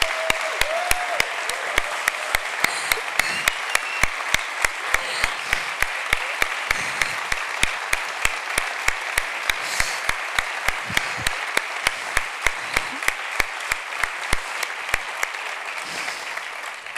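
A large audience applauding steadily, with one person's sharp, even claps close to the microphone about three times a second that stop a second or two before the end.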